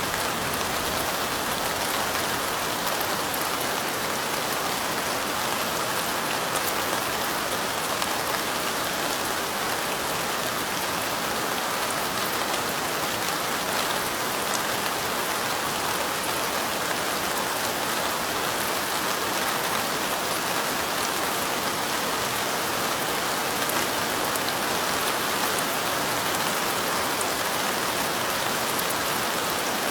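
Steady light rain falling: an even hiss with fine drop ticks, holding the same level throughout.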